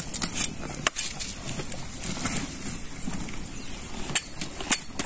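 A machete chopping green fodder over a cattle trough: sharp, irregular cuts, a few in the first second, then a pause and two more near the end.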